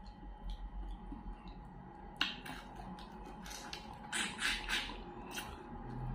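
Wet mouth clicks and lip smacks from eating fried fish with the fingers, sucking meat off the bones: one sharp smack about two seconds in and a quick run of several around four to five seconds.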